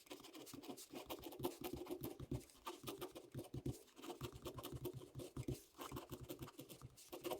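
Faint, irregular light tapping and scratching, several small clicks a second.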